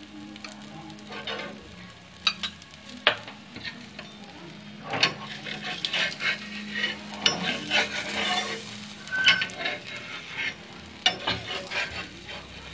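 Egg omelette frying on a hot flat tawa, sizzling, with repeated clinks and scrapes of a metal spoon and spatula against the pan.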